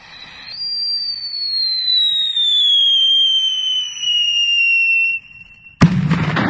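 Firework cake going off: a shrill whistle that falls slowly in pitch for about five seconds, then a sudden loud bang followed by crackling.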